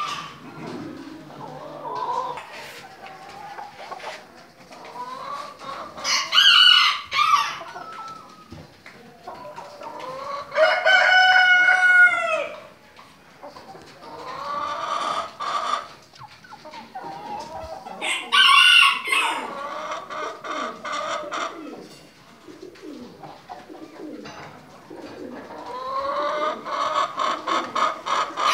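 Caged show chickens: roosters crowing several times, with hens clucking in between. The longest crow comes about ten seconds in and lasts about two seconds, and another crow rises near the end.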